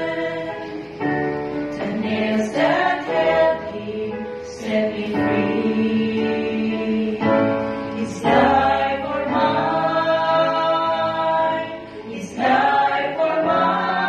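Mixed vocal quartet of three women and one man singing a gospel song together through microphones, with long held notes.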